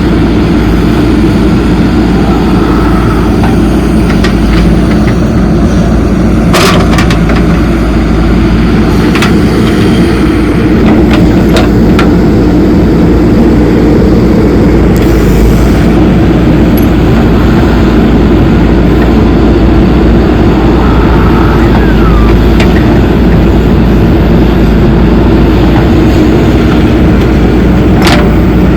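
Heavy diesel machinery engine running steadily, with a few short metallic clanks from the work.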